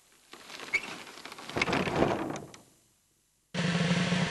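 An old wooden barn door is pushed, with a rustling, scraping noise and scattered knocks and creaks that stop about two and a half seconds in. After a moment of silence, background music comes in near the end.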